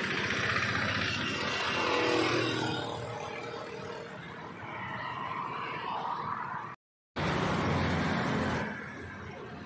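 Road traffic: car engines and tyres passing on a nearby street, a steady hum that swells with a heavier low rumble for a couple of seconds. The sound cuts out completely for a moment about seven seconds in.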